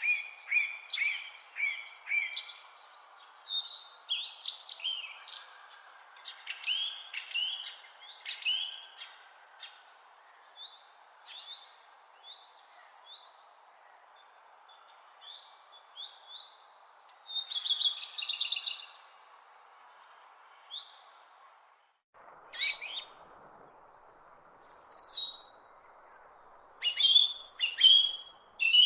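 Several songbirds singing and chirping, a mix of short rapid notes, trills and whistles, over a steady faint background hiss. About three quarters of the way through, the background cuts out for an instant and a different stretch of birdsong starts.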